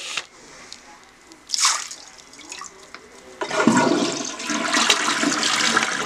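Toilet flushing: after a short burst of noise about a second and a half in, water rushes loudly and steadily into the bowl from about three and a half seconds in.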